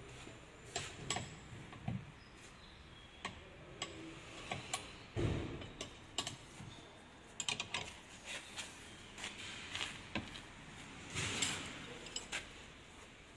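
Scattered sharp clicks and light knocks at irregular times, with a duller thump about five seconds in and another near the end, like workshop handling noise.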